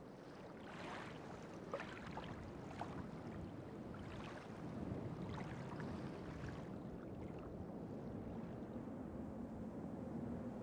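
Sea water lapping and splashing softly, with a low steady hum coming in toward the end.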